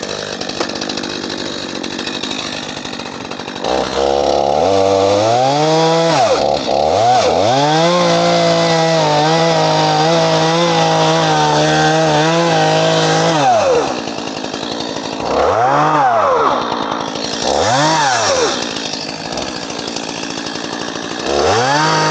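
Two-stroke chainsaw running. About four seconds in it revs up and is held at full throttle for several seconds while cutting into a hedge stem near its base. It then drops back and is given a couple of short throttle blips before revving up again near the end.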